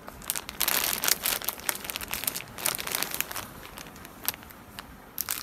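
Clear plastic sock packets crinkling and rustling as a hand shifts and presses them, in irregular bursts. The crinkling is busiest in the first two seconds and sparser later.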